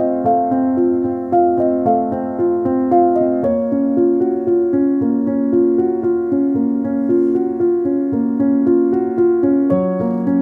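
Background music: a calm keyboard melody of evenly paced, sustained notes, the harmony shifting a few seconds in and again near the end.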